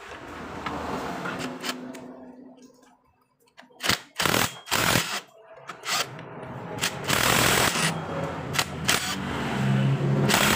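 Impact wrench tightening the centrifugal clutch's centre nut: a few short bursts from about four seconds in, then steady rapid hammering from about seven seconds on.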